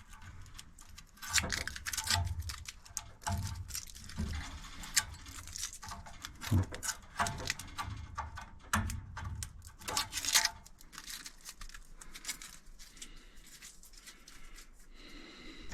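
Irregular small clicks, taps and scratching from hands handling plumbing fittings, as a label is picked off a part; the handling noise thins out in the last few seconds.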